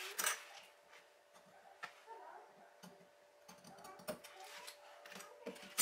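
Scissors cutting canvas to round off an edge: a few faint, separate snips and clicks with light rustling of the material.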